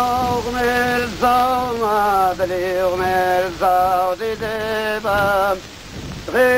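Men's voices singing a slow folk melody in parts over a held lower drone note, with a short pause between phrases near the end. The hiss of an old film soundtrack runs underneath.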